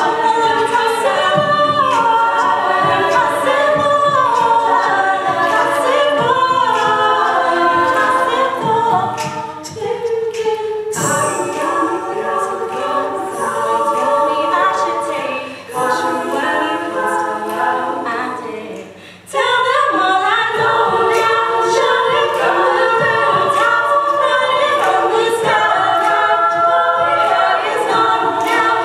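Female a cappella group singing in harmony, with sharp vocal-percussion clicks under the voices. About a third of the way in the singing drops to a softer passage, then comes back in full suddenly about two-thirds of the way through.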